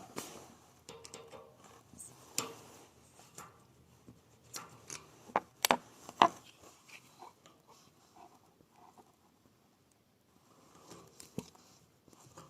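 Scattered sharp clicks and knocks of hand tools and small metal valve parts being handled at a radiator valve, coming irregularly and loudest in a cluster a little after the middle.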